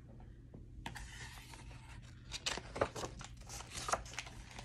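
Pages of a picture book being turned by hand: paper rustling and sliding, with a few sharper page flaps in the middle.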